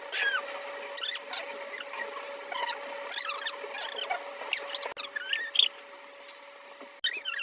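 Close-miked eating sounds of noodles being eaten: irregular wet mouth clicks, smacks and short squeaky slurps, with a faint steady hum underneath.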